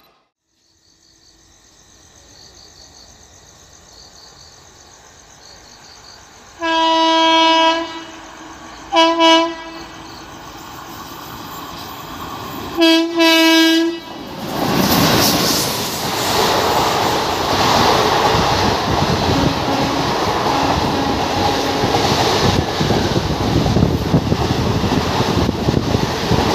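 Indian Railways express train, the Teesta Torsa Express, running through a station at speed. Its locomotive horn sounds one long blast, a short blast, and then two short blasts as it approaches. The coaches then rush past loudly, with wheels clattering over the rail joints.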